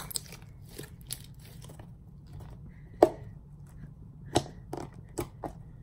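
Homemade slime squeezed and worked in the hands, giving scattered clicks and pops, the sharpest about three seconds in and a few more in quick succession near the end.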